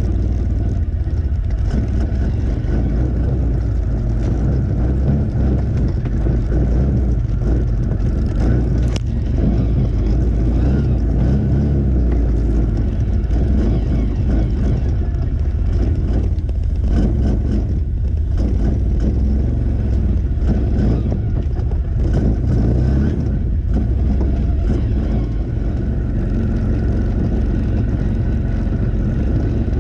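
Off-road 4x4 vehicle driving along a rough track: a steady, low engine and drivetrain rumble.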